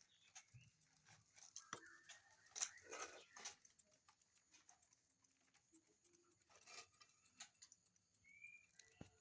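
Faint clicks and brief hisses of a hand sprayer being worked, spraying insecticide into a bird cage against ants. A short high chirp comes about eight seconds in.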